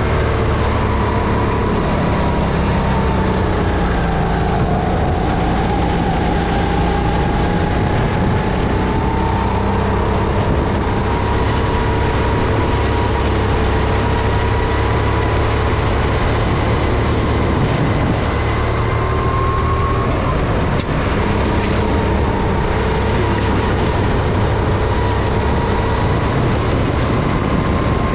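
Single-cylinder four-stroke Honda GX270 engine of a SODI RT10 rental kart running under load, heard onboard. The revs drop about four seconds in, climb slowly back, then hold high with a short dip around twenty seconds in.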